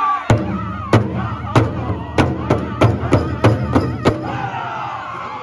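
Powwow drum group singing a men's chicken dance song in high voices over a large shared bass drum struck in unison. The beats come about every half second, then quicken to about three a second and stop with a last hard beat about four seconds in, while the voices carry on.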